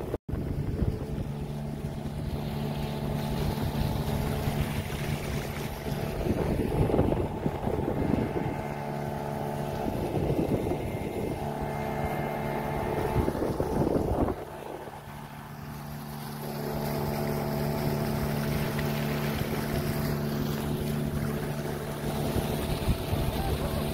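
Motorboat engine running steadily at cruising speed, with wind buffeting the microphone; the wind noise eases a little past halfway while the engine keeps going.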